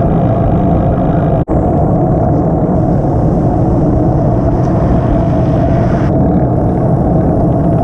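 Wind rushing and buffeting over the microphone while riding along a road, with a steady low rumble and a brief break about one and a half seconds in.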